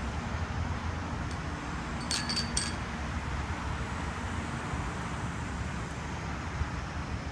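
Steady low background rumble, with a quick cluster of three or four light metallic clinks about two seconds in as the eagle's tether fittings are handled.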